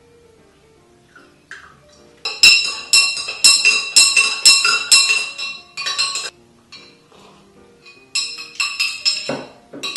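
Metal spoon clinking against the inside of a tall glass while stirring milk tea: rapid ringing clinks about twice a second from about two seconds in to about six, then a second faster run from about eight seconds in. Soft background music plays underneath.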